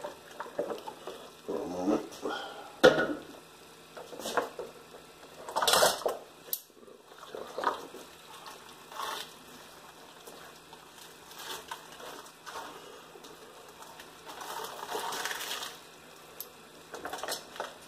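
Irregular handling noises, with knocks, bumps and scraping, as a whole half-cooked turkey is turned over by hand in a NuWave Oven. There is a sharp knock about three seconds in, and longer scraping or rustling near six seconds and again near fifteen.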